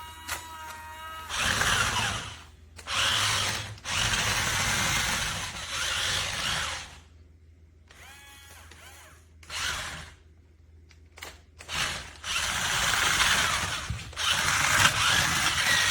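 Small electric motor and gearbox of a remote-control monster truck whirring in repeated bursts of one to two seconds, speeding up and stopping as it is driven, with brief whining glides in pitch.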